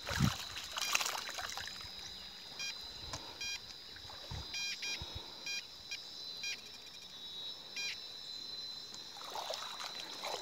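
Tianxun metal detector giving short electronic beeps, on and off several times, over a buried target in shallow river water, with a steady high whine underneath. Water sloshes and splashes as a long-handled sand scoop digs, loudest about a second in and again near the end.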